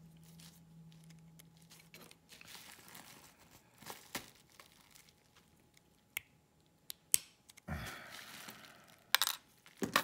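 Handling of a lock and tools on a bench: faint rustling with a few sharp small clicks, and a louder rustle with two quick clicks near the end.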